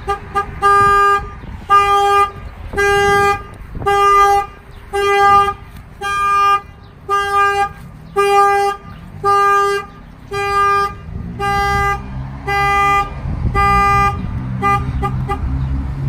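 Peterbilt truck's horn honking in even, steady-pitched pulses, about one and a half a second, as the newly installed alarm goes off after a door is opened. A low rumble rises under the honking in the last few seconds.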